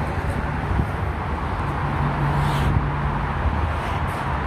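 Steady urban road traffic noise with a low hum, from vehicles on the streets and expressway.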